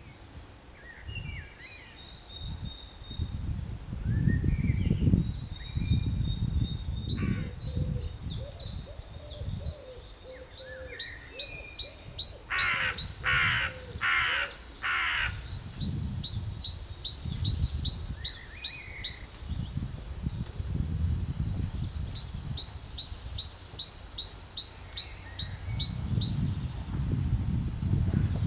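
Outdoor birdsong: a small bird sings short, rapid, high trills again and again, and four harsh calls come in quick succession about halfway through. A gusty low rumble of wind runs underneath.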